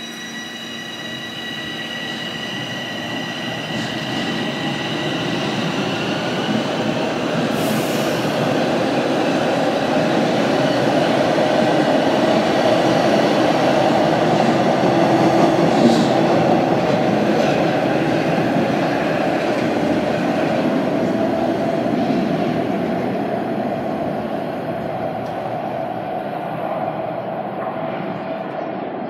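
A Bombardier Toronto Rocket subway train pulling out of an underground station. It starts with a high steady whine, then the rumble of the moving cars builds to a peak about halfway through as they pass, and fades as the train goes into the tunnel.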